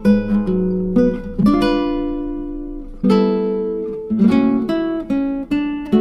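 Background music: acoustic guitar playing plucked notes and chords, some ringing out for a second or more.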